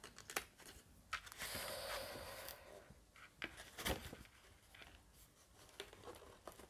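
Faint handling of paper and cardstock: a soft sliding rustle lasting just over a second, and a few light taps and clicks.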